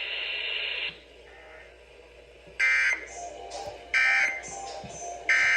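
Emergency Alert System end-of-message signal: three short bursts of screechy SAME data tones, a little over a second apart, marking the end of the alert broadcast.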